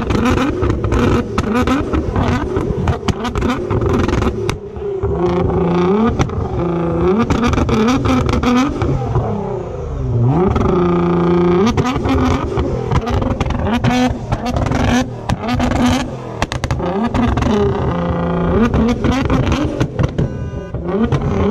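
Nissan R35 GT-R's twin-turbo V6 being revved over and over, its exhaust crackling with rapid pops and bangs as it backfires and spits flames.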